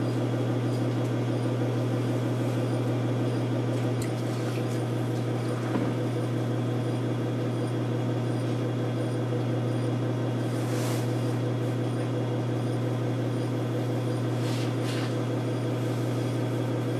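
Electric potter's wheel running with a steady hum while a porcelain pot is shaped on it.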